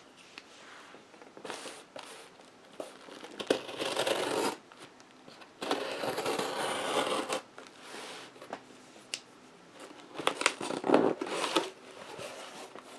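Scissors slitting the packing tape along the seam of a cardboard box, two longer scraping, tearing stretches near the middle with small clicks between. Near the end, cardboard rustles and scrapes as the box flaps are pulled open.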